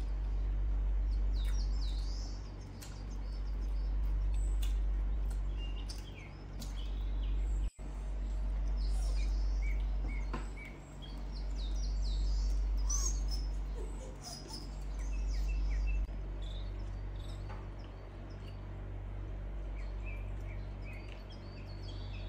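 Small birds chirping and tweeting in scattered short calls over a low steady rumble that swells and fades every few seconds.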